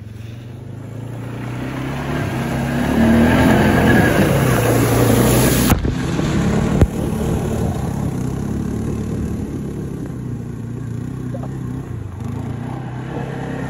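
Quad (ATV) engine running under throttle as it drives through a shallow creek, with water splashing and spraying; engine and spray grow louder over the first few seconds and peak a little before halfway. A single sharp knock comes about seven seconds in, after which the engine runs on more evenly.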